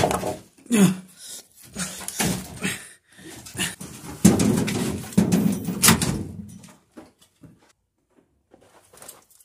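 A scuffle in a small shed: a run of knocks, bumps and rustling, with a grunting vocal sound, ending abruptly about seven seconds in.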